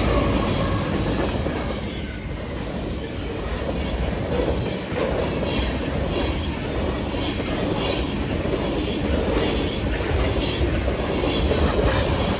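BNSF local freight train rolling past at close range, a steady rumble with the wheels clicking over rail joints in pairs every few seconds.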